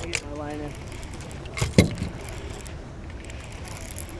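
Baitcasting reel being cranked in while playing a hooked fish, over steady wind-and-water noise, with a brief hummed voice near the start and a single sharp knock about two seconds in.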